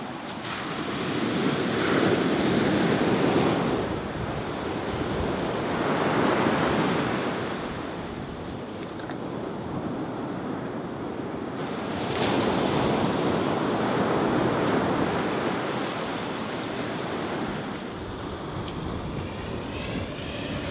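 Ocean surf breaking on a beach, rising and falling in about three long surges of wash, with wind on the microphone.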